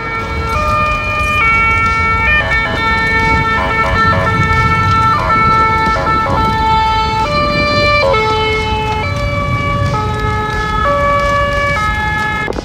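Synthesizer lead from the soundtrack playing a slow, siren-like line of held notes that step between different pitches at uneven intervals, over a steady low rumble.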